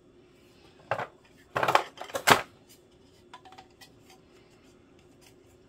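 Hard plastic toy parts of a mermaid salon play set clicking and knocking together as they are handled and fitted. Three loud knocks in the first two and a half seconds, then a few faint ticks.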